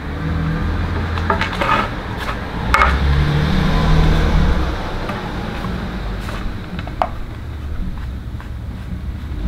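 Hands working a rubber strip into the channel of an aluminium roof bar lying on cardboard: a few light clicks and rustles over a steady low rumble.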